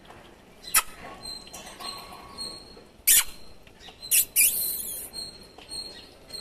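Kittens play-fighting on a wooden floor: soft scuffling with a few sharp, brief scratching rustles, the loudest about three seconds in, and a longer rustle just past four seconds.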